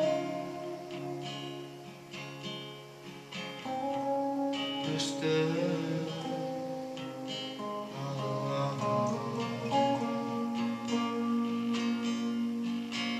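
Instrumental guitar break: an electric guitar picks a lead line over a strummed acoustic guitar.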